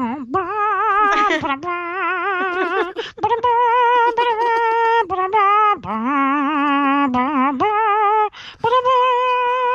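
A woman singing a wordless melody in held notes with strong vibrato, stepping between pitches every half second or so, imitating a tune by voice.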